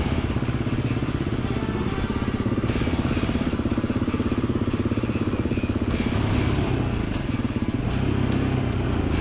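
Gas Gas 350 dirt bike's single-cylinder four-stroke engine running steadily while riding a rough trail, heard from on the bike itself.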